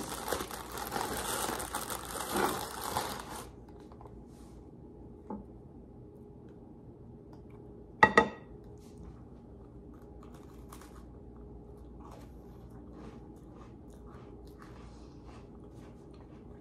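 Crinkling of a graham cracker pack's plastic wrapper for the first three or four seconds, then one sharp crunch about halfway through as a graham cracker loaded with pumpkin dip is bitten, followed by faint chewing.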